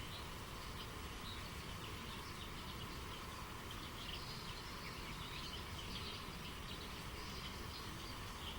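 Steady rush of a flowing stream with small birds chirping in short, scattered calls over it.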